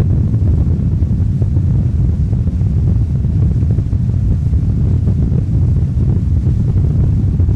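Wind buffeting the microphone on a moving boat, a steady low rumble, with the running noise of boats on the water mixed underneath.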